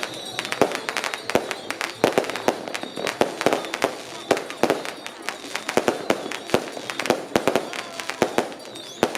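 Strings of firecrackers going off in a rapid, irregular crackle of sharp bangs: a firecracker salute welcoming a Mazu procession.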